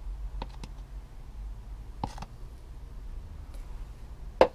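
Light clicks from handling a plastic measuring jug and funnel while engine oil pours into a motorcycle's filler, then a single sharp knock near the end as the emptied jug is put down, over a low steady hum.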